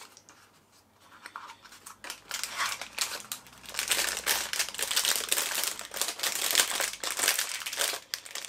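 A collectible figure's packet crinkling and rustling as it is handled and pulled at to get it open; faint ticks at first, then dense crackling that builds from about two seconds in and gets louder toward the end.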